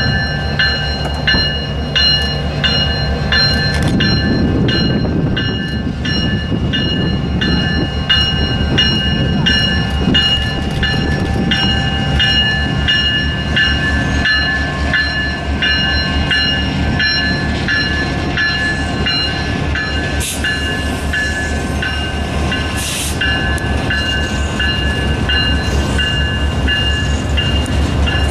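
Canadian Pacific freight-style train led by a GP20C-ECO diesel locomotive rolling past, with the engine running and the wheels clacking in a steady rhythm. A bell rings about twice a second throughout.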